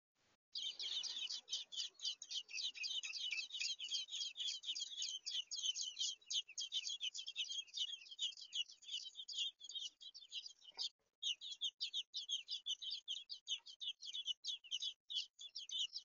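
American robin nestlings begging for food: a rapid, unbroken stream of short, high-pitched squeaks from several chicks at once. It starts about half a second in, breaks off briefly about eleven seconds in, and then goes on.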